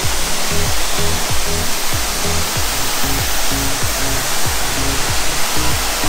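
Waterfall rushing steadily, its flow a bit low, with background music over it: a bass line and a regular kick-drum beat.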